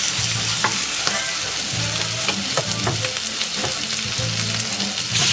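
Shredded-potato latke batter frying in hot oil in a stainless steel pan: a steady sizzle with scattered sharp crackles.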